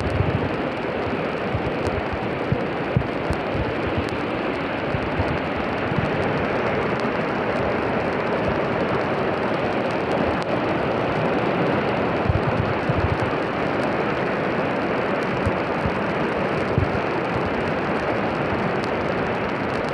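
Floodwater rushing across a street: a steady, dense sound of turbulent water, with irregular low thumps of wind buffeting the microphone.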